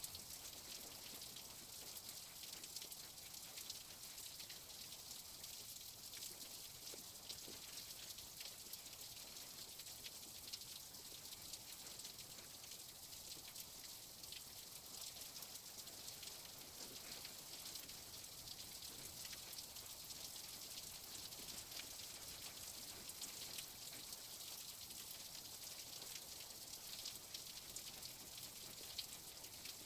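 A faint, steady hiss with many small crackles scattered through it, heard throughout.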